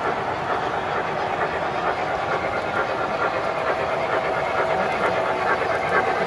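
Model train running on a three-rail layout: a model steam locomotive rolling along the track with its sound system running, getting slightly louder as it approaches.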